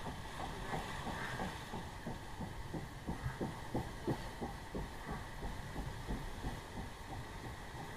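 Whitewater rushing around a river-rapids ride raft, with a quick, uneven run of low slaps and thumps, several a second, loudest in the middle.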